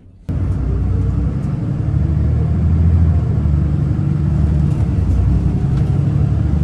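Steady low rumble of a bus running, heard from inside the cabin; it starts abruptly just after the start.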